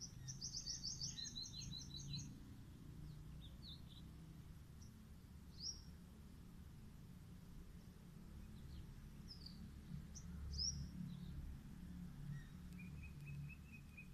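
Birds calling: a fast, high trill of repeated notes in the first two seconds, then scattered short chirps, and a lower, evenly spaced run of notes near the end, all faint over a low rumble.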